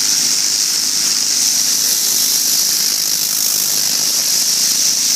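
Pressure washer with a turbo nozzle spraying a wooden deck to strip mildew: a steady, loud hiss of the water jet, with a faint low hum of the machine underneath.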